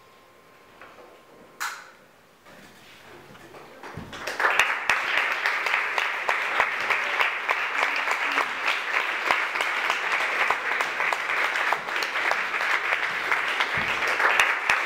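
Audience applause that breaks out about four seconds in and continues steadily as dense, rapid clapping. Before it there is near quiet with one short knock.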